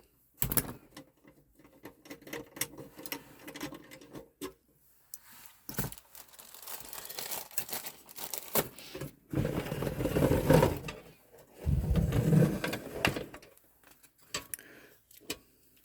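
Hand ratchet clicking in short runs as screws are worked on a computer chassis, with scattered knocks and clicks of the tool and metal parts being handled. A denser stretch of rapid clicking comes in the middle.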